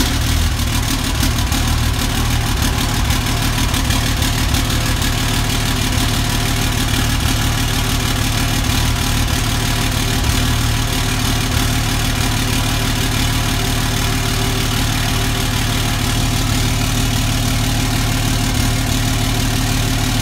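A 2005 Dodge Ram's 5.9 Cummins inline-six turbo diesel idling steadily, just after being started.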